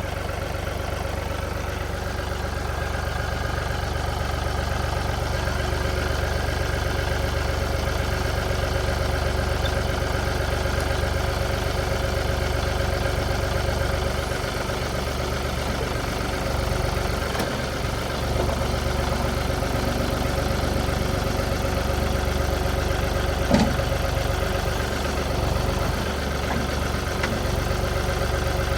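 John Deere 2032R compact tractor's three-cylinder diesel engine running steadily while the front loader is worked back onto its mounts. A single sharp knock sounds about 23 seconds in.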